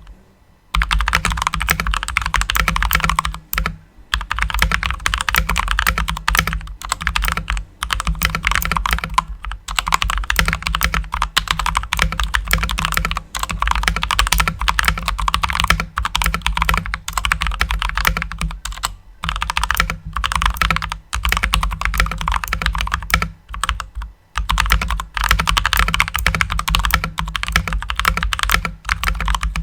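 Fast, continuous typing on a newly built custom mechanical keyboard with lubed switches and clipped, lubed stabilizers: a dense clatter of keystrokes broken by a few short pauses.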